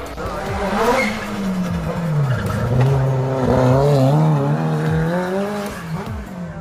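Race car engine revving hard through a hillclimb bend as the car drives past, its pitch dipping and climbing again several times as the throttle comes off and back on.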